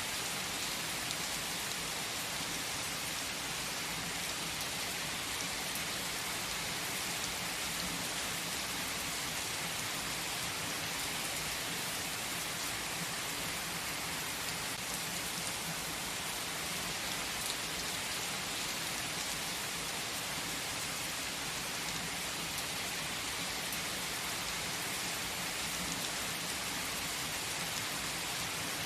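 Steady, even rainfall drumming on surfaces, with the odd louder single drop.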